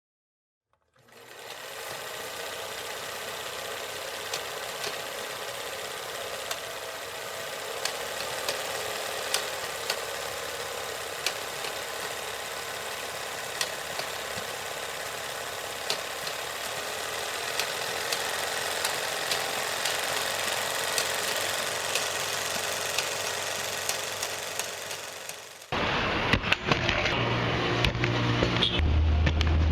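A rapid, thin mechanical clatter with scattered clicks. About 26 seconds in it cuts off and music with a heavy bass beat starts.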